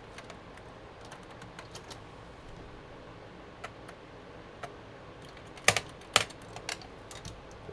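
Scattered small clicks and taps of hands handling parts inside a desktop PC case, with a few sharper clicks in the second half.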